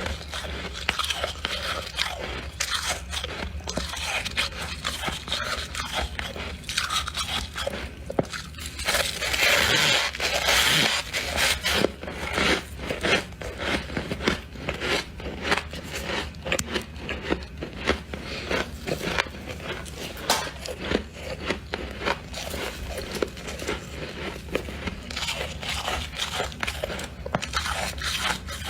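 Freezer frost being scraped and eaten: dense crunching and chewing of packed frost, with a louder stretch of scraping about nine to eleven seconds in. A low steady hum runs underneath.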